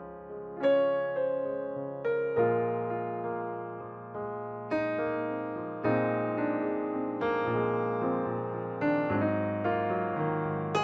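Background music: slow solo piano, chords struck every second or two and left to ring away.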